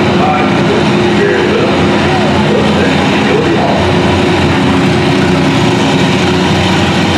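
Oliver 88 tractor engine running steadily under load as the tractor pulls a weight-transfer sled across the dirt.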